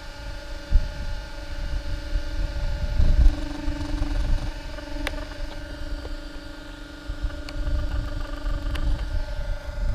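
Wind buffeting the microphone with a low, uneven rumble, over a faint steady whine, and a few sharp clicks as hands handle the RC buggy's rear and wiring.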